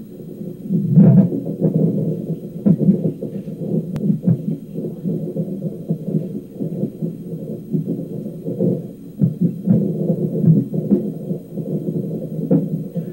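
Repeated hiccups: short sudden jolts every second or so over a steady low hum.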